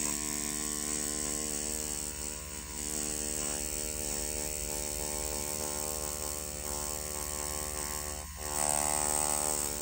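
Mast Archer rotary pen tattoo machine running with a steady motor hum while its ballpoint pen cartridge draws a line on paper. There is a short click a little after eight seconds, then the hum gets louder for the last second or so.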